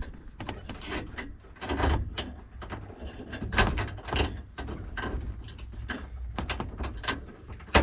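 Irregular clicks, knocks and rustles of hands handling wiring and fastening a switch in place under a car's dash.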